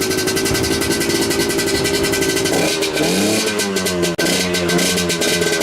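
Motorcycle engine running steadily at idle while warming up, then revved up and down from about three seconds in.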